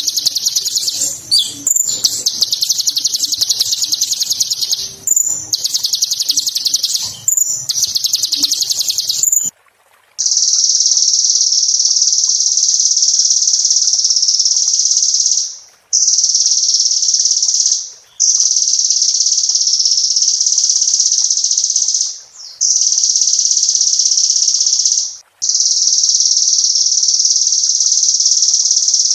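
Kolibri ninja sunbird singing in rapid, high, chattering trills with brief breaks. After a short pause about ten seconds in, the song gives way to long, even, high buzzing trills of a few seconds each, separated by short gaps.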